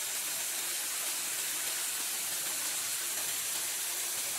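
LEGO Technic electric motor driving worm gears, running steadily with an even whirring hiss as the lift platform climbs its gear-rack columns.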